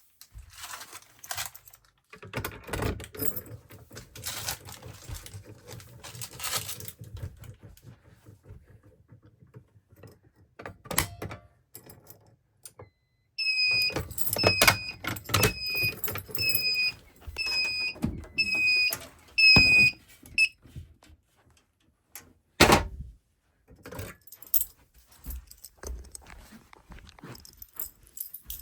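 A fire alarm sounder beeps a high tone about eight times, roughly once a second, each beep dipping slightly in pitch at its end, then stops. Scattered clicks and knocks of handling come before and after it, with one sharp knock a couple of seconds after the beeping ends.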